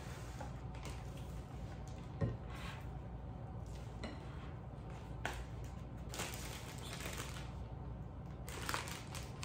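Spatula scraping creamy egg-yolk filling out of a ceramic bowl and a plastic zip-top bag crinkling as it is held open and filled, with a couple of light knocks against the bowl, over a steady low hum.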